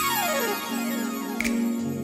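Background music: held chords with a falling pitch sweep in the first half-second and a short hit about a second and a half in.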